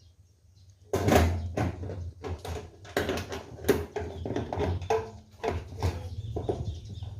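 Irregular knocks, clicks and clatter of hand work fitting a solar panel in place, starting about a second in, over a low rumble.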